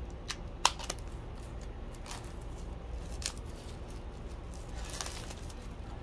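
Stiff clear plastic packaging being pulled and flexed off a new circular saw blade: a few sharp clicks and crackles, the loudest about half a second in, another crackle near the end.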